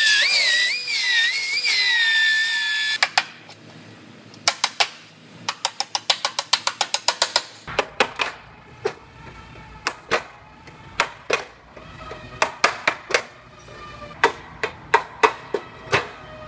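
Air-driven narrow belt sander grinding through the car's sheet-metal structure, a high whine that dips and wobbles under load and cuts off about three seconds in. After it come sharp metallic taps from a hand tool worked against the panel, some in quick runs of about five a second.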